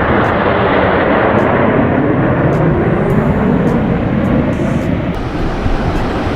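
Aircraft flying past at an air show: loud, steady engine noise that eases a little near the end.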